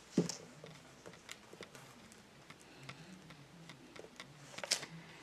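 Faint, scattered clicks and light taps of paper pieces and craft supplies being handled on a tabletop, with a sharper click just after the start and a few more near the end.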